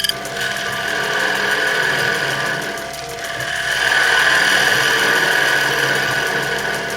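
Turning chisel cutting into the inside of a spinning wooden platter on a small bench lathe, a steady scraping cut that eases off about three seconds in, then comes back louder.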